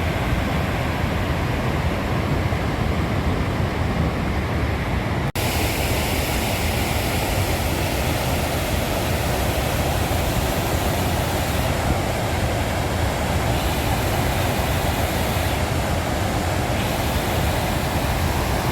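Mountain creek rushing steeply over rapids, a steady loud rush of white water. There is a sudden break about five seconds in, after which the rushing carries on.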